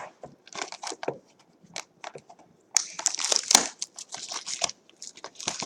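Trading-card pack packaging being handled and torn open: irregular crinkling and crackling, busiest for a couple of seconds starting about three seconds in.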